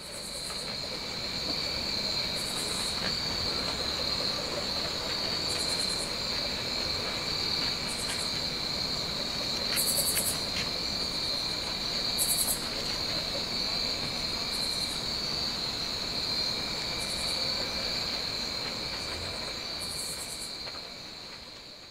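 Evening insect chorus: a steady, high, continuous trill of crickets. Every couple of seconds, other insects add short bursts of rapid, even higher-pitched pulses. The sound fades in at the start and fades out near the end.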